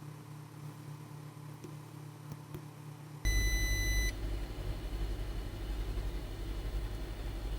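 A steady low machine hum; about three seconds in, one short electronic beep sounds, and a louder low hum starts with it and keeps running.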